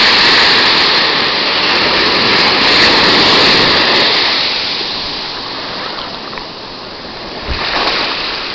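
Ocean surf breaking and washing through the shallows. It is loud for the first few seconds, eases off, then swells again near the end.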